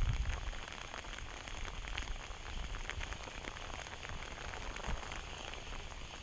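Steady rain falling, with many scattered close raindrop taps over a low rumble.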